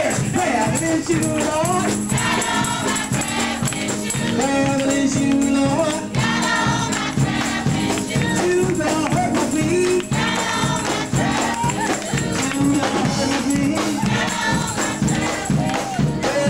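Live gospel singing: a lead voice on a microphone with other voices singing along, over a steady rhythmic beat.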